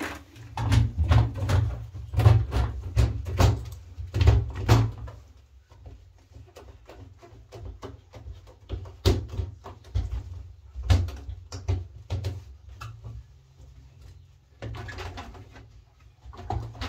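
A rapid run of knocks and clicks with a low rumble, as of hands working on the washing machine's panels and parts, busiest in the first five seconds and sparser after.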